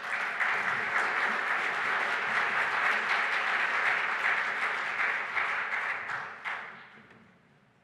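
Conference audience applauding after a talk, a steady spell of clapping that dies away over the last second or so.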